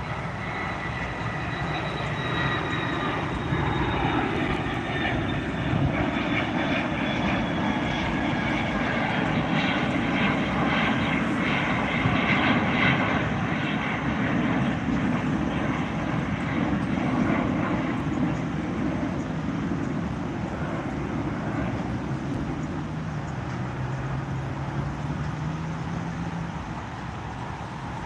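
Jet aircraft taking off and climbing away. The engine noise swells to its loudest about twelve seconds in and then slowly fades. A high whine falls in pitch during the first few seconds.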